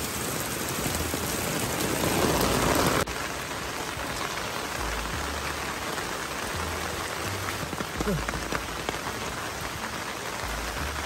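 Steady rain falling on foliage and wet ground. It is louder for a moment, then drops off abruptly about three seconds in.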